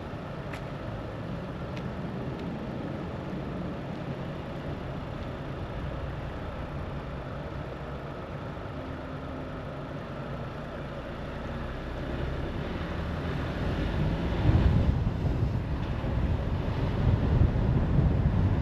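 Car driving along a road: steady engine and tyre noise. From about twelve seconds in it grows louder, with a heavier low rumble.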